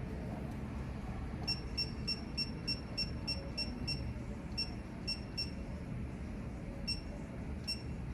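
Digital torque wrench beeping as a bolt is tightened toward 40 newton-metres: a run of short high beeps about three a second, then a few more spaced beeps.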